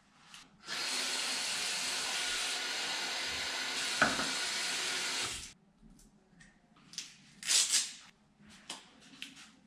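Bathroom sink tap running in a steady hiss for about five seconds while a plastic cup is filled, then shut off abruptly. Afterwards come a few light clicks and knocks as the cup and toothbrush are handled.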